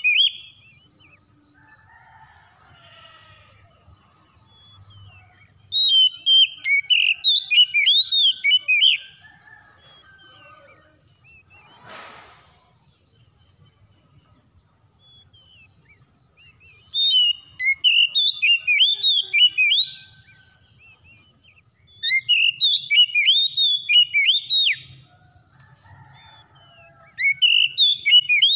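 Oriental magpie-robin singing loud bouts of rapid, varied whistled phrases, four bouts with short pauses between them. In the pauses a faint, evenly pulsed high trill repeats.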